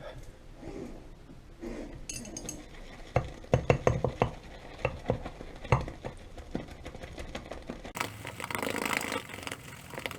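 Ceramic shaving scuttle and shaving gear being handled: a run of sharp clinks and knocks over a few seconds, then about two seconds of steady swishing hiss near the end.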